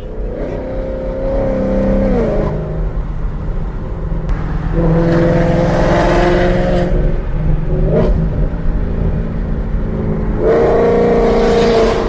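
Ford Mustang engine blipped up from idle three times, each rev held for a second or two before dropping back to a steady idle.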